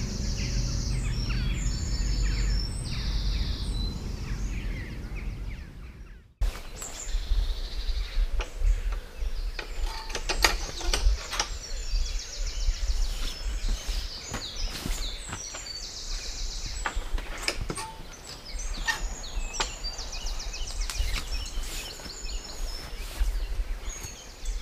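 Birds singing in short repeated phrases over a low rumble of wind on the microphone. The sound breaks off briefly about six seconds in; after that, scattered short knocks and clicks come through under the birdsong.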